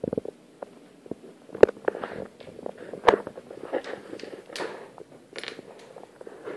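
A kitten playing with a bottle cap on a wooden parquet floor: a run of small clicks, knocks and scrabbling, with two sharp knocks standing out about a second and a half in and three seconds in.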